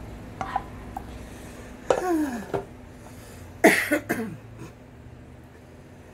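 A woman coughing twice, about two seconds apart, the second cough the louder, after a few faint clicks.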